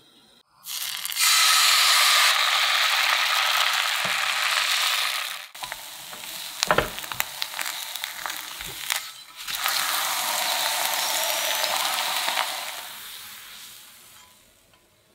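Crepe batter sizzling in a hot rectangular pan. In the middle the sizzle drops and a spatula clicks and scrapes against the pan a few times, then the sizzle comes back and fades out near the end.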